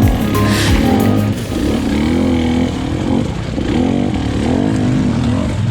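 Dirt bike engine revving as it is ridden, its pitch rising and falling over and over as the throttle opens and closes. Some steady tones fade out in the first second or so.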